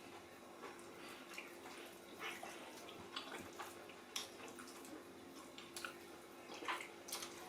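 Faint eating sounds: scattered small wet clicks and smacks of people chewing and handling food, over a steady faint hum.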